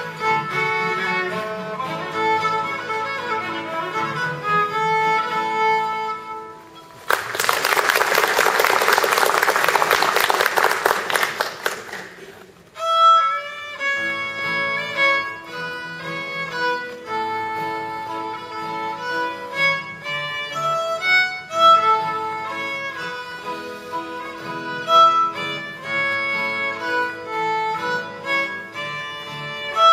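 Fiddle with acoustic guitar backing finishes a tune about six seconds in. Audience applause follows for about five seconds and is the loudest part. Then the fiddle and guitar start the next tune.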